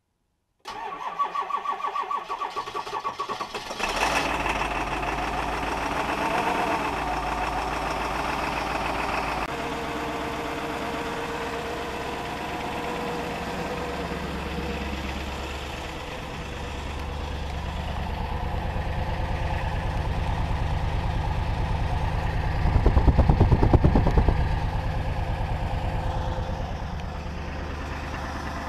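A 2003 Ford E350's 7.3-litre Power Stroke turbo diesel V8 cold-starting at about −16 °C after under an hour on the block heater: the starter cranks with a rhythmic pulse for about three seconds, then the engine catches and settles into a steady idle. The idle swells louder for about two seconds near the end.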